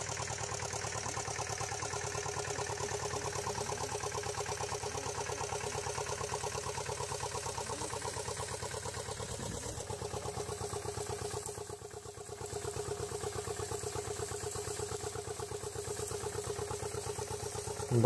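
Engine of a small four-wheel garden tractor running steadily with an even, rapid pulsing beat as it pulls a spinner potato digger through the soil; it dips briefly in level about twelve seconds in.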